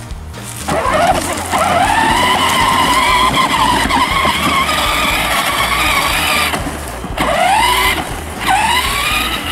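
Simulated engine-rev sound from the sound box of a 12V Kawasaki ride-on toy quad. It rises in pitch, holds steady for several seconds, cuts out, then revs up again twice near the end.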